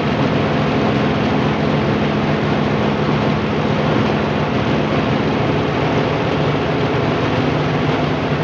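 Small electric rice hulling and milling machine running, a loud steady mechanical noise with a motor hum; one hum tone drops out about five seconds in.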